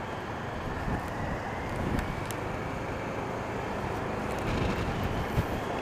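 Motorcycle on the move heard through a microphone inside the rider's helmet: a steady rush of wind and road noise with the engine running underneath.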